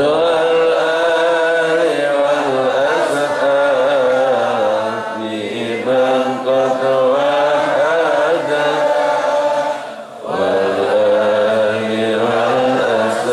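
A man's voice chanting a sholawat in praise of the Prophet, sung in long melodic phrases with a short break about ten seconds in.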